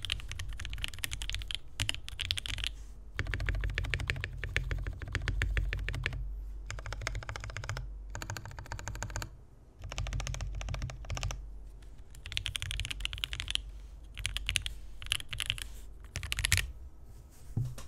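Typing on a custom 60% mechanical keyboard: Durock L Series 62g linear switches on an aluminium plate, in a foam-stuffed, o-ring-mounted zebrawood case, with GMK keycaps. Bursts of fast keystrokes broken by short pauses, with a run of quick, evenly spaced repeated presses near the middle; the keystrokes sound deep and snappy, but hollow.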